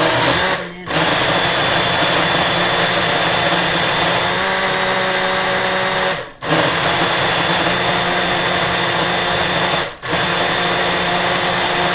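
Personal blender motor running at full speed, blending a smoothie of banana, cherries, coconut and sparkling water. It runs in four spells with short stops about a second in, about six seconds in and about ten seconds in, its note shifting a little around four seconds in as the contents blend.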